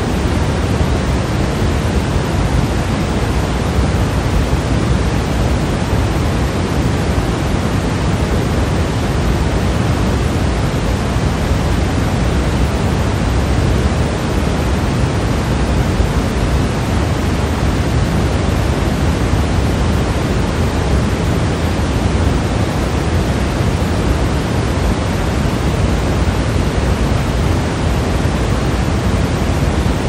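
Steady pink noise: an even, unchanging hiss that is fullest in the low end and thins toward the top.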